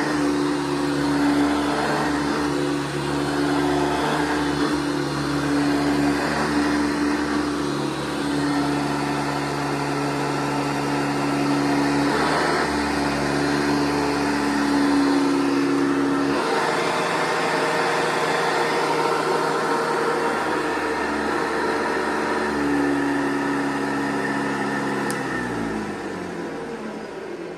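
1982 Hoover Guardsman upright vacuum cleaner running steadily, its motor tone changing a few times. Just after 25 seconds in it is switched off with a click and the motor winds down, its pitch falling away.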